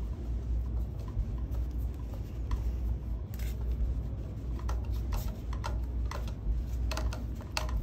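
Screwdriver turning the screw on a metal mounting bracket that clamps a glycol pump to its motor: light scraping with scattered small metal clicks, which come thicker in the second half.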